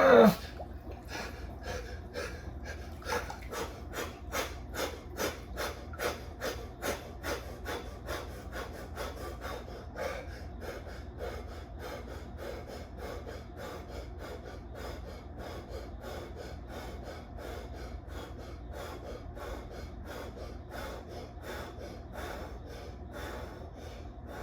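A man breathing fast and hard through his mouth, about two to three breaths a second, as the cold-shock response to sinking into 53-degree water. It opens with a loud gasping cry, and the breaths are loudest for the first ten seconds or so, then settle into a quieter steady rhythm.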